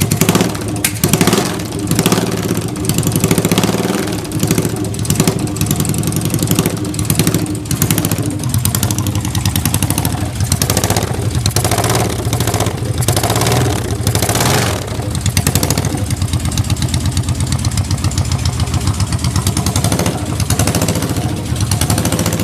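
Yamaha TX650 650 cc parallel-twin engine idling steadily, with a few short louder bursts around the middle. It runs with no abnormal noise, which the seller takes as a sign of a healthy engine.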